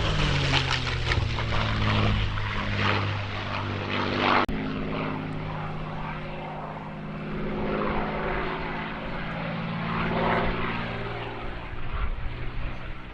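Propeller aircraft engine passing overhead, its pitch dropping as it goes by, then cut off abruptly about four and a half seconds in and replaced by another engine pass that also drops in pitch near the end.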